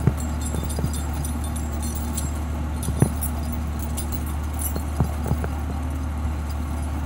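LKT 80 skidder's diesel engine running steadily while its winch drags a bundle of logs in on the cable. A few sharp knocks from the moving load stand out, loudest about three seconds and five seconds in.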